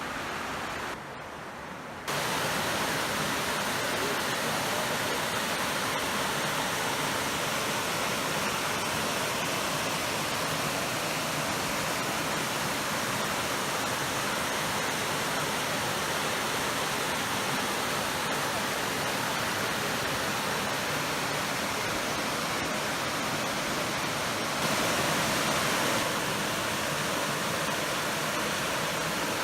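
Waterfall: a steady rush of falling water that jumps louder about two seconds in and swells briefly near the end.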